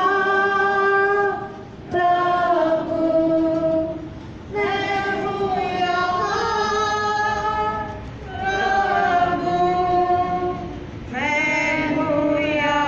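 A congregation of mostly women's voices sings a slow hymn together in long held notes, with brief breaks between lines every few seconds.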